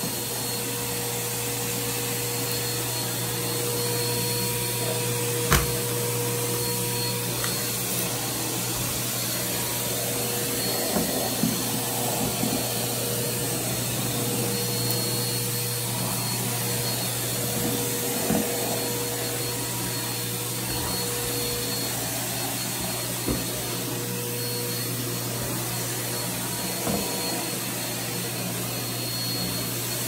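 Vacuum cleaner running steadily with its floor nozzle pushed back and forth over carpet: a constant motor hum and airflow hiss, broken by a few sharp clicks, the loudest about five and a half seconds in.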